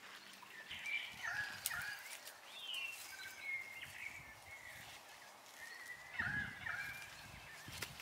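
Birds calling in short gliding, warbling phrases, in two bursts. About six seconds in, a soft rustle of soil and plants being handled.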